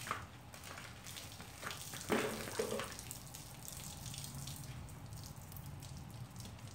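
Water splashing and dripping while a car is hand-washed, with a louder splash about two seconds in.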